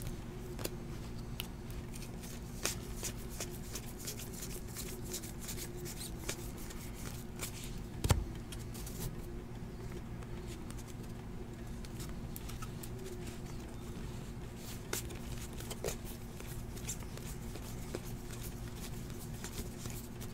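Donruss basketball trading cards being flipped through and squared up by hand: faint scattered clicks and slides of card stock over a steady low hum, with one louder knock about eight seconds in.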